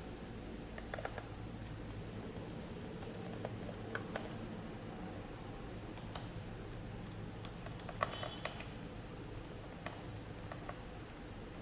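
Scattered light clicks and taps of a small screwdriver and screws being worked out of a laptop's plastic bottom case, with a brief cluster of clicks about eight seconds in, over a steady low hum.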